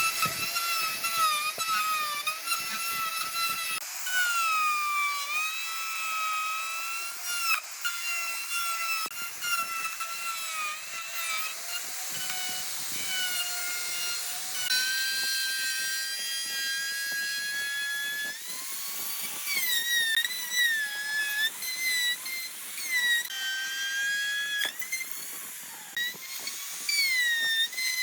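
High-pitched whine of an electric power tool's motor running under load, its pitch wavering, dipping and recovering as it works, and stepping higher about halfway through.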